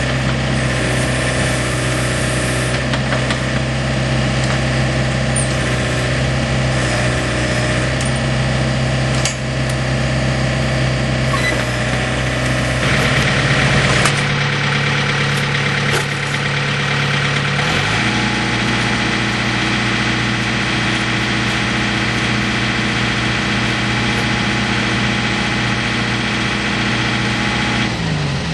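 John Deere 110 compact backhoe loader's diesel engine running steadily. Its pitch and tone shift about halfway through, and it drops briefly near the end.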